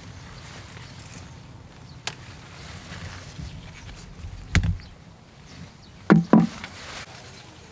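Ears of corn being snapped off their stalks by hand: a few separate sharp cracks, the last two in a quick pair near the end.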